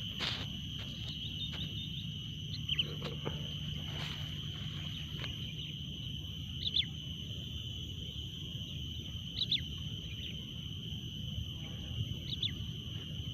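Four short, high bird chirps spaced a few seconds apart, over a steady high-pitched insect drone and low background rumble.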